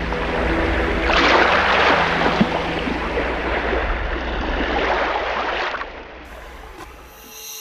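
Rushing sea noise of waves and wind, taken from a small boat on choppy open water, with a low steady rumble underneath. It swells about a second in and again around five seconds, then fades about six seconds in.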